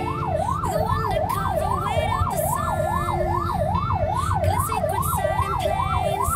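Garda siren in a fast yelp, its pitch sweeping up and down about two and a half times a second. It is heard from inside a following car over a low rumble.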